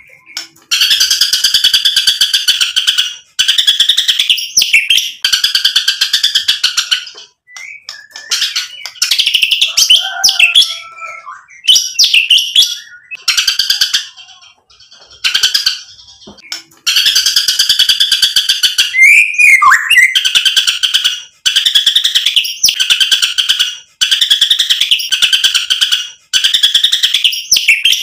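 White-rumped shama singing: long, fast rattling phrases of two to three seconds each, broken by short pauses, with a looser stretch of varied chirps and whistles in the middle and a falling whistle about two-thirds of the way in.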